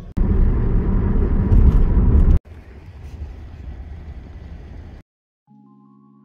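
Loud car noise, heavy in the low end, for about two seconds, cutting off suddenly to quieter steady outdoor background noise. Soft background music with held chords begins about five and a half seconds in.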